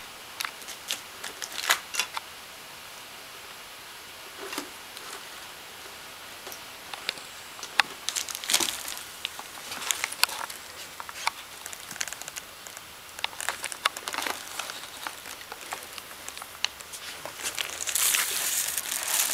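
A plastic bag crinkling and rustling in irregular bursts as a cat rummages through it, getting louder and denser near the end.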